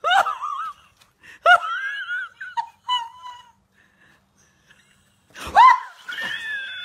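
A person laughing hard in high-pitched, wheezing whoops that rise and fall in pitch, in several outbursts, the loudest about five and a half seconds in.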